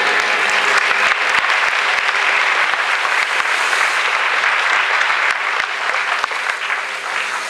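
Audience applauding, a dense patter of clapping that eases off over the last couple of seconds.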